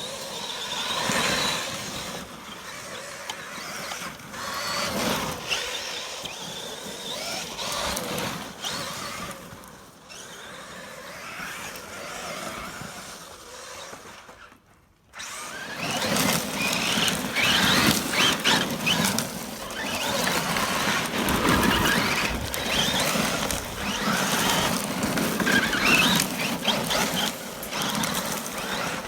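Electric RC truck being driven, its motor whine surging up and down with throttle and its tyres scrabbling over the ground. About halfway through it goes nearly quiet for a moment, then runs harder and louder.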